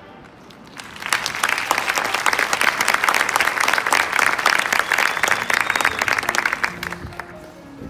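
Audience applauding and cheering in a marching band's show. The clapping swells in about a second in and dies away near the end.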